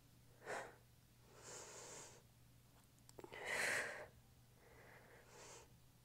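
A woman breathing audibly through an exercise set: four soft breaths spaced a second or two apart, exhaling as she rows her arm up and inhaling as she lowers it, the loudest a little past halfway.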